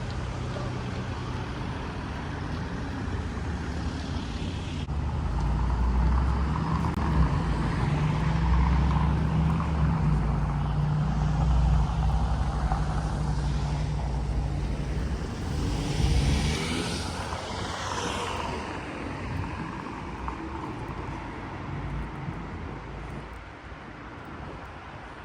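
City street traffic. A heavy vehicle's engine rumbles close by for about ten seconds, then a vehicle sweeps past with a rising and falling rush, and the traffic settles back to a steady hum.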